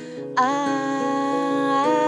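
Nylon-string classical guitar fingerpicked. About half a second in, a woman's voice enters over it and holds one long wordless sung note, which bends up slightly near the end.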